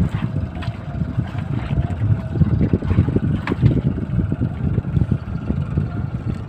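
A steady hum from a boat engine under a fluctuating rumble of wind on the microphone, with a few light knocks.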